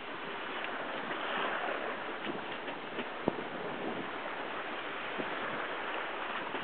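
Sea water rushing and splashing along the hull of a 1969 Albin Vega sailing yacht under sail in open ocean, a steady wash of noise. There are a few light knocks and a sharper one about three seconds in.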